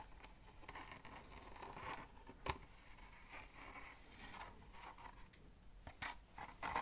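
Faint rustling and handling noises close to the microphone, with a sharp click about two and a half seconds in and a few more clicks near the end.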